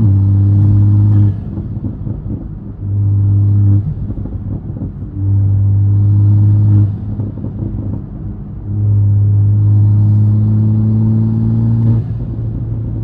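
Toyota Supra's turbocharged inline-six, fitted with a catless downpipe and single-exit Tomei exhaust, heard from inside the cabin as the driver gets on the throttle four times. Each pull brings a loud, deep, steady exhaust drone, and the engine drops back to a quieter, rougher note between them.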